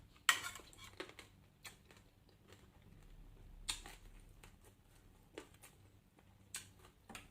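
A person eating: irregular crisp crunches and wet mouth clicks from chewing, a few seconds apart.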